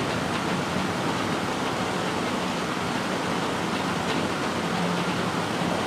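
A steady rushing noise, even from low to high pitch, with a faint low hum underneath.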